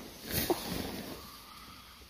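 Nylon fabric of a sleeping bag and stuff sack rustling as it is handled and gathered up, with a louder swish about half a second in.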